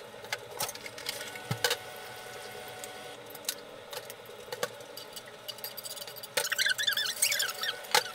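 Kitchen food-prep clatter: a knife tapping and scraping on a cutting board, with scattered small knocks and clicks. Near the end comes a short burst of high, wavering chirpy sound.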